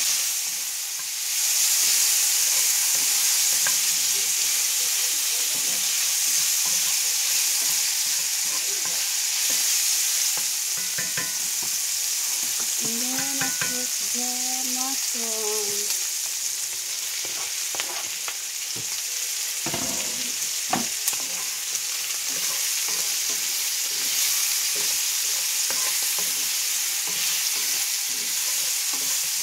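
Pork strips sizzling in hot oil in a cast-iron skillet, stirred with a wooden spoon: a steady frying hiss. A brief pitched hum sounds about halfway through, and a couple of sharp knocks come about twenty seconds in.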